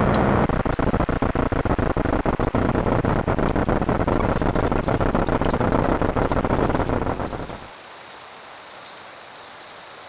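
Loud crackling hiss full of dense clicks from a trail camera's own audio, a distortion the owner puts down to the camera's batteries running low. It cuts off suddenly after about eight seconds, leaving a faint hiss.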